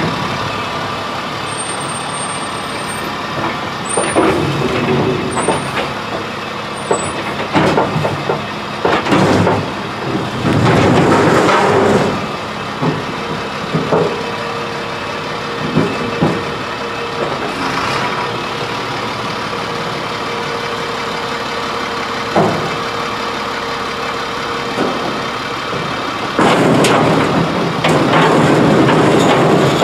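1999 Crane Carrier garbage truck with an Impac CSL body running, with scattered knocks and clanks from its container-handling arm and a steady whine through the middle. Near the end the truck gets louder as the arm lifts a refuse container overhead.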